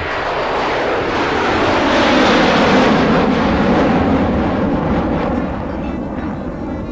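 Airliner's jet engines at takeoff thrust heard from inside the cabin: a loud, even rushing roar that swells to a peak about two to three seconds in, then eases slightly.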